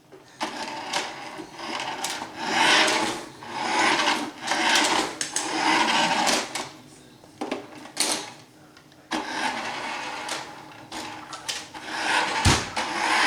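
Toy remote control truck's small electric motor and plastic gears whirring in repeated short bursts as it is driven forwards and backwards, with a sharp knock near the end.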